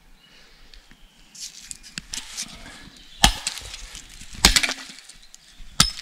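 Three sharp knocks of a hatchet striking wood, a little over a second apart, after some rustling and scraping of timber being handled.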